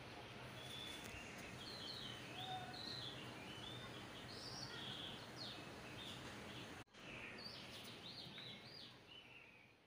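Several birds chirping in short, high calls over a steady background hiss. The sound cuts out for a split second just before seven seconds in, resumes, and fades away near the end.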